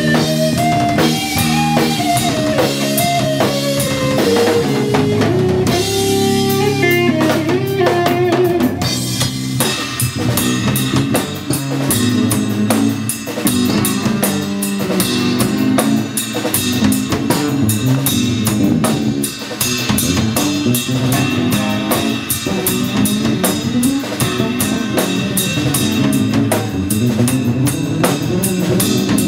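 Live instrumental jazz-fusion band playing: a lead line bending up and down over bass and drum kit for the first several seconds, then the drum kit takes over with fast, even cymbal and snare strokes over the bass.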